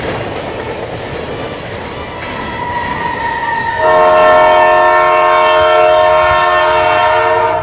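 Train sounds: a rumbling noise, then from about four seconds in a loud multi-tone train horn blown steadily until it cuts off.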